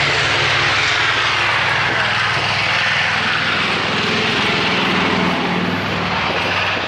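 Loud, steady engine noise from an aircraft in flight: a broad rushing sound with a low drone beneath it.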